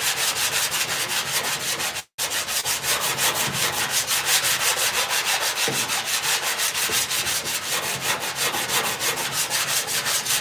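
Hand-sanding a Volkswagen Beetle's aftermarket front fender with a sanding block: quick, even back-and-forth strokes of sandpaper over the body filler, about five a second, finishing the panel to primer-ready. The sound cuts out for an instant about two seconds in.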